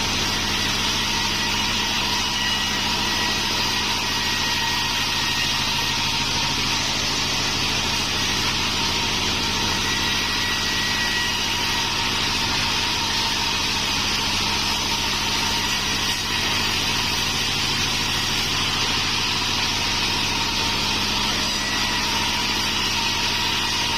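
Band sawmill running steadily: an even machine drone with a strong high hiss that does not change in pace.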